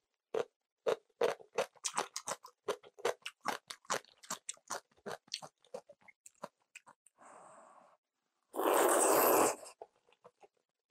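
Close-miked chewing of crunchy kimchi: rapid crisp crunches that thin out after about six seconds. This is followed by a short soft slurp and then a loud slurp of kalguksu noodles, about a second long.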